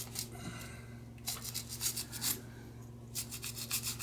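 Rapid back-and-forth scrubbing strokes on a small lighter part being cleaned, in two runs of about a second each, one about a second in and one near the end. A steady low hum lies underneath.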